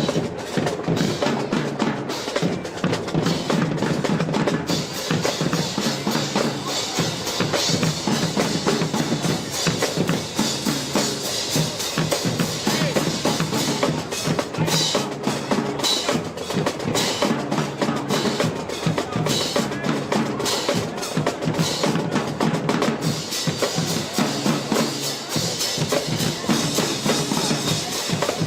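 Marching band playing, with snare and bass drums driving a steady beat.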